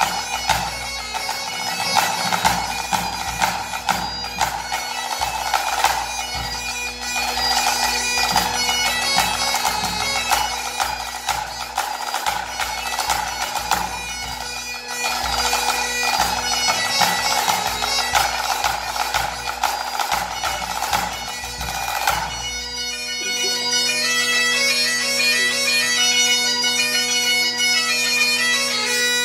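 Great Highland bagpipe playing a tune over its steady drone, accompanied by a pipe band snare drum, tenor drum and bass drum. About 22 seconds in the drumming drops away, leaving the pipes playing alone.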